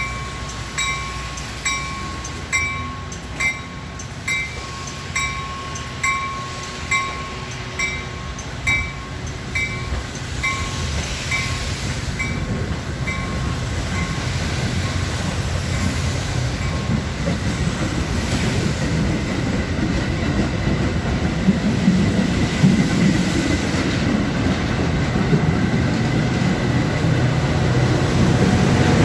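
Railroad crossing bell ringing about once a second, dying away after about twelve seconds, as a Metra commuter train's rumble and wheel noise grow steadily louder on its approach. A thin steady squeal joins in the second half.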